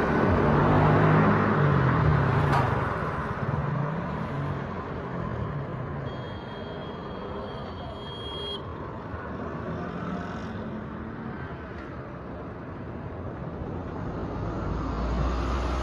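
Street traffic: a motor vehicle's engine passes close in the first few seconds, its pitch rising and falling, then fades into general road noise. A high steady tone sounds for about two and a half seconds in the middle, and another vehicle's low engine rumble builds near the end.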